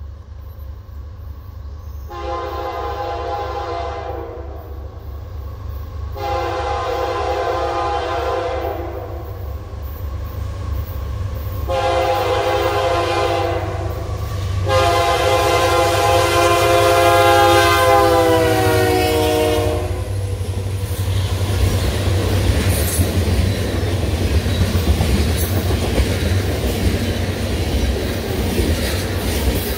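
Locomotive multi-chime air horn sounding four blasts, the last held longest and falling in pitch as it ends, then the train running past with wheels clacking on the rail joints.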